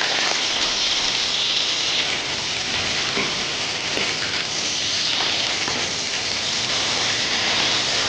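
Pieces of pomfret sizzling steadily as they fry in hot oil in a wok.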